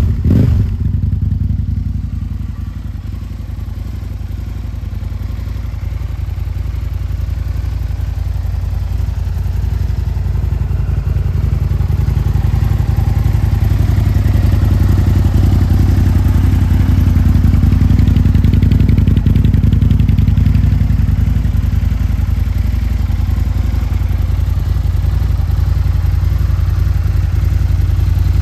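2009 Aprilia Tuono 1000's V-twin engine running through aftermarket Akrapovic exhausts: a brief blip of the throttle at the start, then a steady, deep idle.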